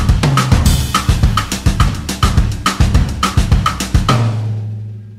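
Background music with a drum-kit beat and bass line, about three drum hits a second, with a cymbal crash under a second in. The drums stop about four seconds in, leaving a held low bass note that fades away.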